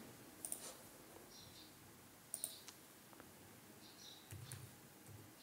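A handful of faint computer mouse and keyboard clicks, with a sharper double click about two and a half seconds in, over near silence.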